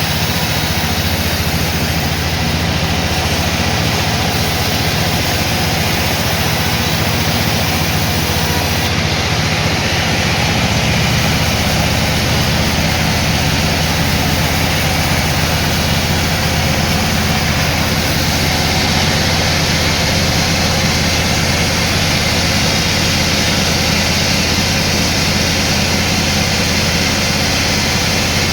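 Sawmill machinery running steadily: a constant low engine hum with an even noise over it, no pauses or strikes.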